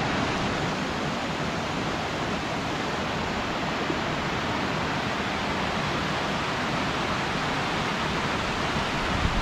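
Small rocky creek rushing over a cascade of boulders: a steady, even rush of water.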